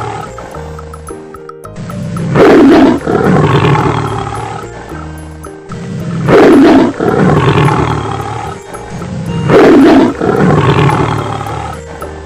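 A big cat's roar, played three times about three and a half seconds apart, each a loud burst that fades out over a second or so, over background children's music.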